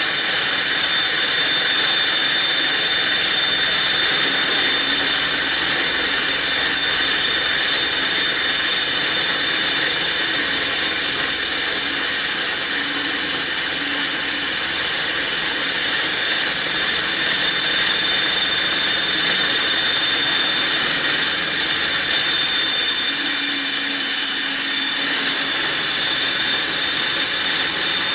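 A BF20 CNC-converted benchtop milling machine running steadily, on its original spindle bearings, with a constant high whine.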